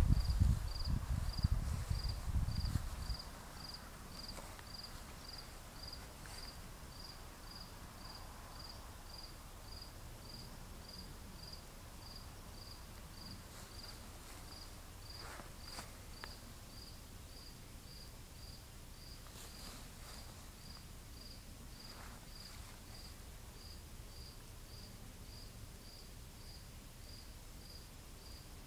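A cricket chirping steadily, a short high chirp repeated about three times every two seconds. For the first three seconds a loud low rumble on the microphone lies under it.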